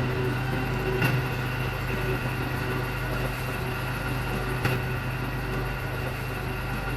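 A small motor running with a steady, unchanging hum, with two light clicks.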